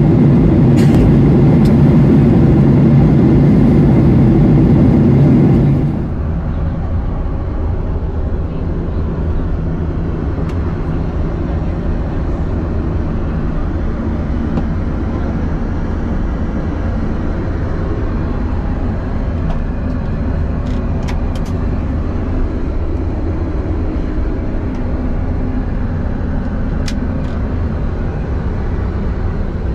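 Steady cabin noise of a Boeing 737-8 in cruise: an even low roar of engines and airflow. About six seconds in it drops abruptly to a quieter, duller hum, with a few faint clicks later.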